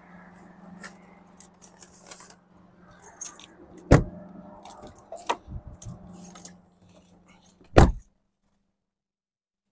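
Keys jangling with a string of clicks and knocks over a steady car engine hum, with three heavier thumps, the last and loudest nearly eight seconds in. The sound then cuts out.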